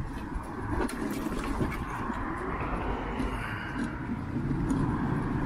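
Wind rumbling on the microphone, with a car passing on the road, its tyre noise swelling around the middle and easing off again.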